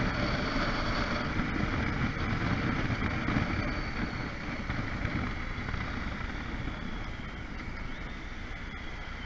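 Riding a motorcycle at about 50 km/h in city traffic: wind buffeting the onboard microphone over the engine and road noise, getting quieter over the last few seconds as the bike slows.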